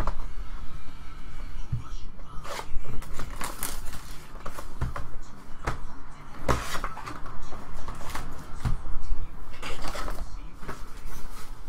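A cardboard Panini Clear Vision football card box being opened and its foil packs pulled out and set down on the table: an irregular run of rustles, scrapes and knocks.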